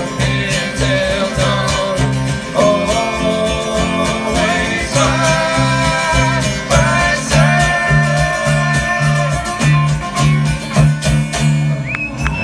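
Live acoustic bluegrass-country band playing: strummed acoustic guitars and sustained chords over a regular pulse of bass notes, with hand drums keeping the beat.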